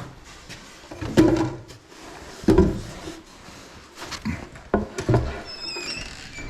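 Boards or lumber being handled and set down: a series of heavy wooden knocks and thumps, the loudest two in the first half, with a short high squeak near the end.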